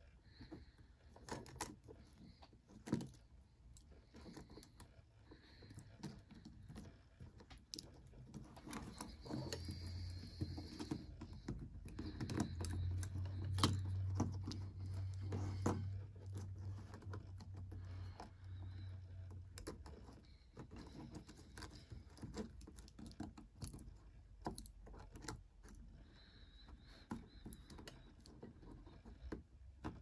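Small irregular clicks and taps of plastic and metal as the circuit board and parts of a fourth-generation iPod are handled and fitted into its front shell. A low steady hum runs through the middle stretch.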